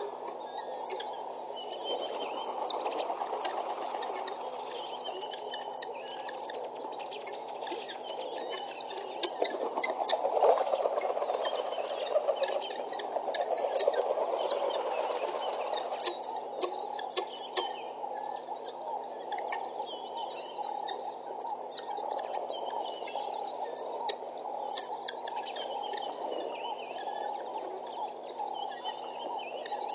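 A flock of helmeted guineafowl chattering and churring together in a dense, continuous rattling chorus, with scattered sharper calls on top. It swells louder around ten seconds in.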